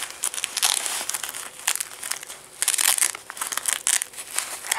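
A fabric stuff sack rustling and crinkling in irregular bursts as a hand works it open.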